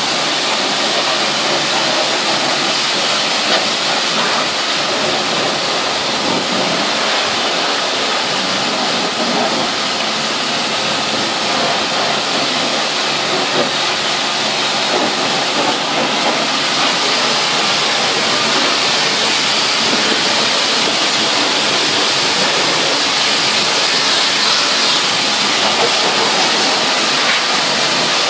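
High-pressure washer spraying water: a loud, steady hiss of the jet with water spattering on the wet seats and metal floor of the vehicle's interior.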